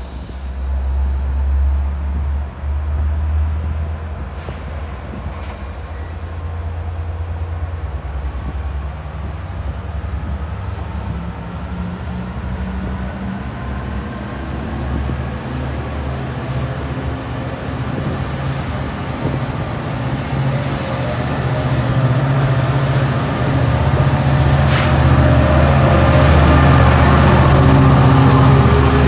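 Train at a station: a steady low rumble with a faint high whine that rises slowly in pitch, getting louder toward the end. A brief sharp burst of noise about 25 seconds in.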